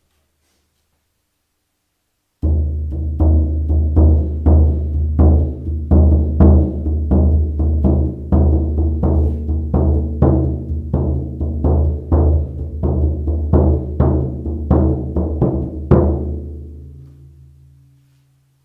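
Shaman frame drum struck in a steady beat of about two strokes a second, each stroke with a deep lingering ring. It starts a couple of seconds in, and after a last hard stroke the ring dies away.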